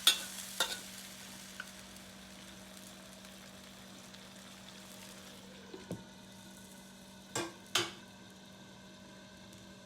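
Chicken feet sizzling in a pan, with a steady frying hiss, while a spatula stirs them: a few sharp knocks or scrapes against the pan near the start and again about six to eight seconds in.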